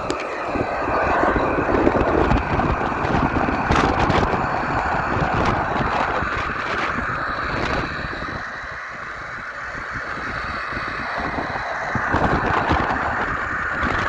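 Strong gusty wind buffeting the microphone, rumbling and swelling in gusts. A steady rough, hiss-like tone runs underneath.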